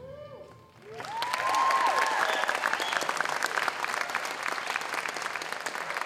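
A theatre audience applauding, breaking out about a second in as the music before it ends, with a few whoops and cheers over the clapping near the start.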